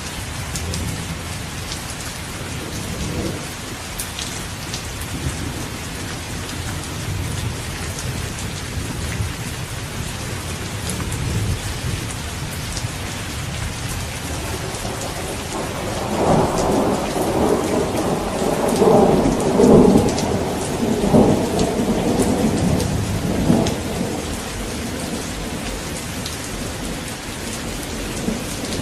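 Steady heavy rain falling, with a long rumble of thunder rolling in about halfway through, crackling in several peaks for some eight seconds before fading back under the rain.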